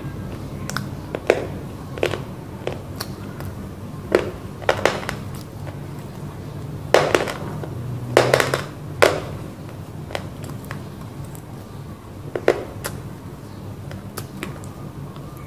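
Roasted clay (mitti) being crunched and chewed close to the microphone: irregular crisp crunches, the loudest in a cluster about seven to nine seconds in, over a low steady hum.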